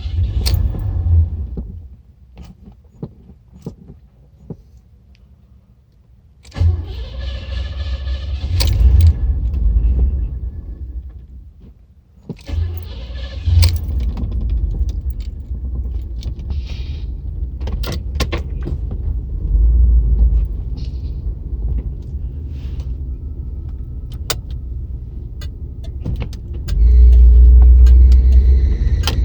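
A Cadillac engine that has been flooded, struggling to run: it stops about two seconds in, catches suddenly about six seconds in, dies briefly near twelve seconds, then runs again and keeps going, loudest near the end. Sharp clicks are heard now and then.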